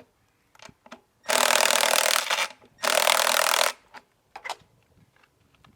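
Two loud rasping scrapes, the first about a second long and the second a little shorter, with a few faint clicks around them.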